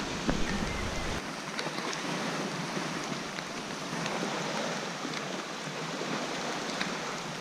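Steady rain and choppy lake water, an even hiss with scattered faint ticks of drops. A low wind rumble on the microphone stops about a second in.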